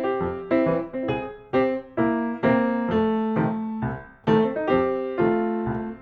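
Background piano music: chords and notes struck about twice a second, each ringing and fading.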